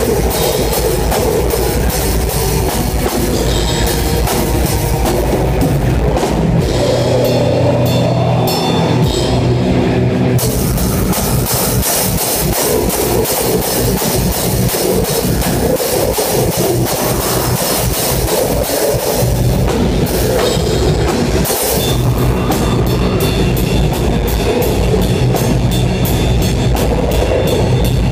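Live rock music heard close to the drum kit, the drums loudest, with the rest of the band underneath. The cymbal hits drop out for a few seconds about a quarter of the way in, then come back as a dense, fast run of strikes.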